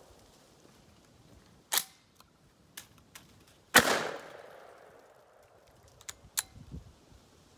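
Citadel Warthog 12-gauge shotgun: a sharp metallic clack as the action is charged, then one loud shot with a trailing echo. A few clicks of the action being worked near the end follow, as the gun has jammed, which the shooter blames on cheap low-brass shells.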